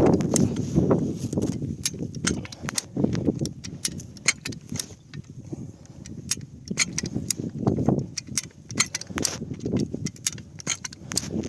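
Metallic clicks and clanks of a hi-lift jack being worked to pull a buried metal pipe out of the ground, irregular and repeated. Strong wind buffets the microphone, hardest near the start.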